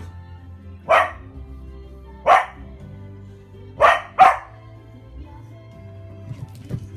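An over-excited cattle dog barks four sharp times, the last two close together. Music plays steadily underneath.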